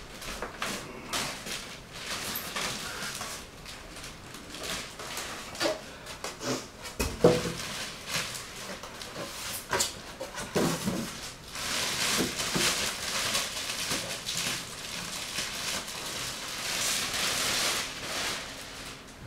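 A Cooler Master HAF 922 PC case being lifted out of and unwrapped from its packaging: scattered knocks and handling clicks, one heavier thump about seven seconds in, and a long stretch of rustling and scraping packing material in the second half.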